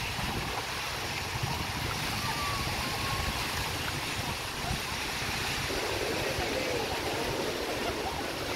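Steady wash of small waves on a sand beach, with a low fluttering rumble of wind on the microphone.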